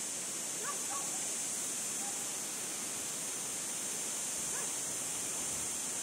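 Steady rushing wind noise with a few short bird chirps: a small cluster about a second in, one at two seconds and another near the fifth second.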